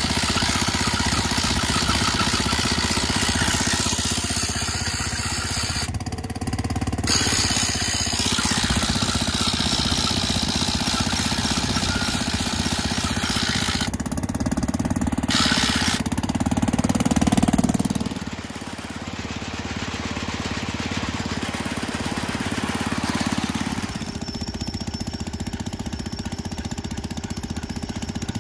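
Small gas engine on a portable grain auger running steadily with a rattling chatter while the auger is put away; the level drops back a little about two-thirds of the way through.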